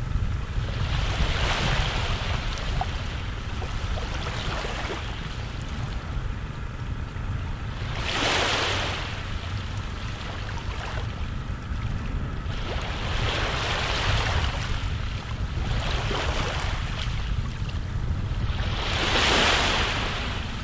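Sea surf washing in every few seconds, each wave a swelling hiss that fades away. The strongest come about eight seconds in and near the end. Under it runs a steady low rumble of wind on the microphone.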